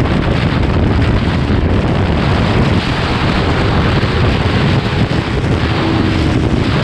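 Wind rushing over the microphone of a Kawasaki Ninja 400 motorcycle riding at highway speed, a steady loud rush with the bike's parallel-twin engine running underneath.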